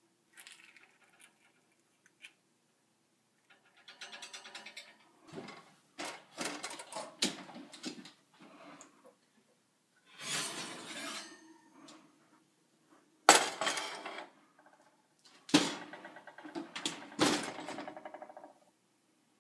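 Glass baking dish clattering against the wire rack of an oven as it is slid in and then pulled out. There are scattered clinks and three sharp knocks in the second half.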